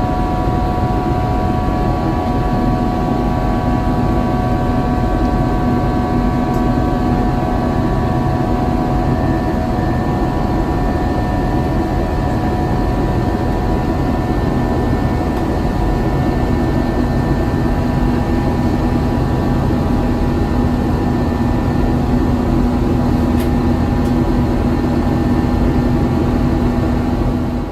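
Airbus A321's IAE V2500 turbofan at climb power, heard through the cabin wall from a window seat just ahead of the engine. The sound is a steady, loud rush with several steady whining tones over it.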